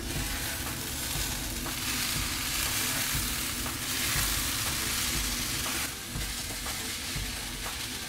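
Ivy gourd stir-fry sizzling in a nonstick frying pan while a wooden spatula stirs freshly added grated coconut through it. The sizzle grows louder about two seconds in and dips briefly near the end.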